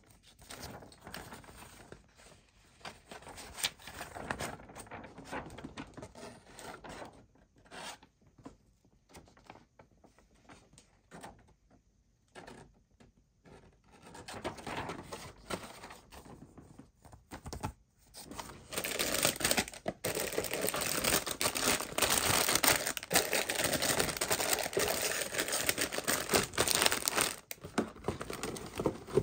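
Paper rustling as a model kit's instruction manual is opened and its pages turned. About two-thirds of the way in, it gives way to a louder, continuous crinkling and rustling as the kit's packaging and plastic parts are handled in the box.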